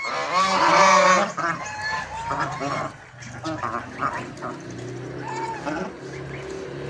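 White domestic geese honking, with a loud burst of overlapping calls in the first second and shorter honks scattered through the rest, over a low steady hum.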